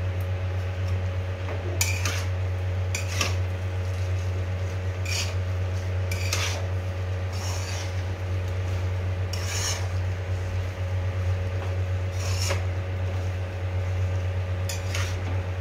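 Metal spatula scraping and stirring bow-tie pasta in an aluminium kadai, with a short scrape every second or two. A steady low hum runs underneath.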